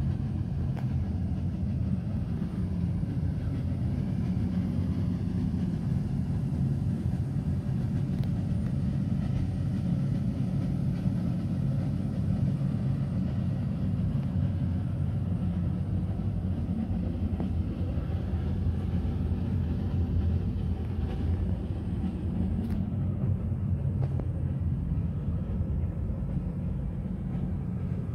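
Electric inflatable blower running steadily, a constant low hum as it keeps the inflatable soft play walls and slide inflated.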